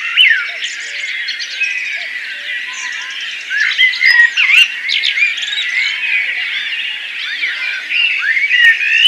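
Many birds singing at once: a dense chorus of overlapping chirps and quick rising and falling whistles.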